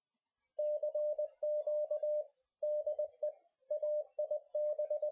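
Morse code (CW) keyed as a steady mid-pitched tone, short and long elements sent in groups with brief pauses between them, starting about half a second in.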